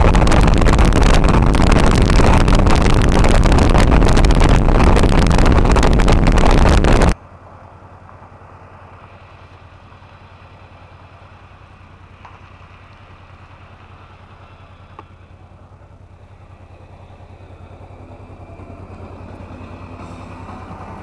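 Loud wind noise buffeting the microphone of a Honda NT700 motorcycle at highway speed, which cuts off abruptly about seven seconds in. After that, the motorcycle's engine runs low and steady, slowly getting louder near the end.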